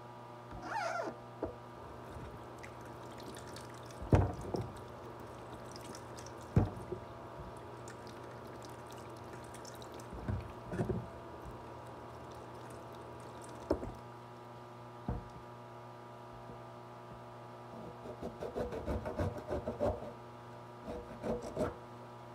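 Water running from a kitchen tap while oranges are rubbed and washed under the stream, with a few short knocks of fruit and hands against the sink, clustering near the end.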